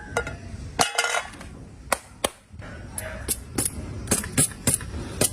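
Plastic toys being handled, making a string of sharp clicks and knocks, with a short ringing clink about a second in and a quicker run of clicks near the end.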